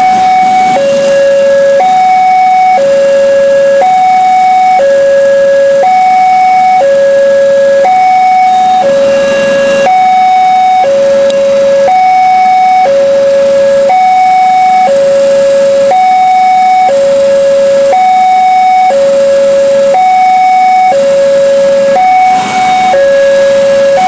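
Two-tone warning siren alternating steadily between a high and a low note, each held about a second, over a constant rushing noise.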